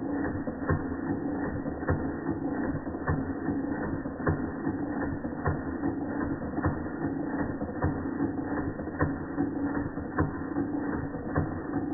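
Antique Georges Carette model 2317 vertical toy steam engine running under steam, its mechanism giving a steady train of regular clicks over a constant low hum.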